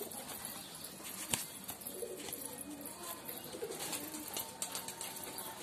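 Domestic pigeons cooing as they crowd around to feed from a hand, with wing flaps and the clicking of beaks pecking grain; one sharp click stands out a little over a second in.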